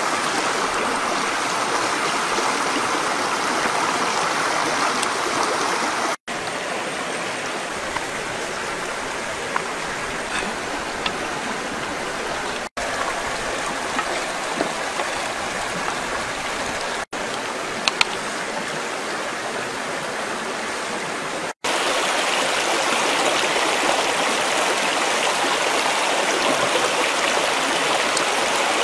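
Steady rushing of a flowing stream, broken by four brief dropouts at the edits, with a few faint clicks near the middle.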